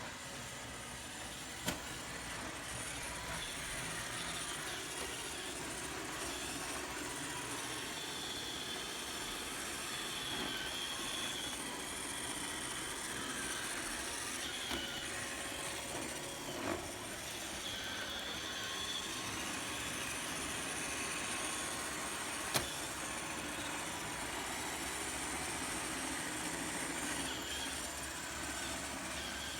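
iRobot Roomba 690 robot vacuum running steadily, its motors and brushes making a continuous whirring noise, with a few sharp clicks, three of them standing out.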